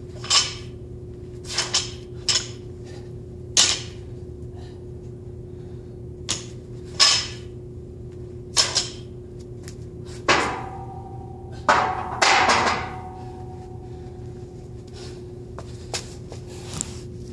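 Barbell loaded with 25 lb iron plates knocking and clanking during reverse-grip power cleans to a press: a dozen or so short, sharp sounds at irregular spacing. Two longer clanks about two-thirds of the way through ring briefly. A steady low hum lies underneath.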